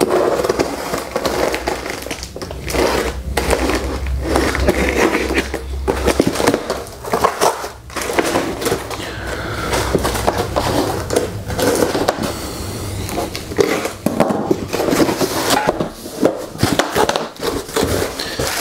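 Cardboard box being opened: a utility knife slitting packing tape, cardboard flaps scraping and folding back, and plastic wrapping crinkling, a dense run of scrapes and rustles.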